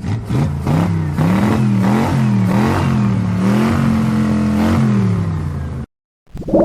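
Car engine revving up and down several times, then cutting off suddenly about six seconds in; a short rising sweep follows near the end.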